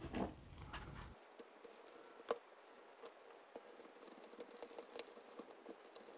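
Faint small clicks and ticks of a screwdriver turning the trigger-box screws into the rifle's metal receiver, with one sharper click about two seconds in.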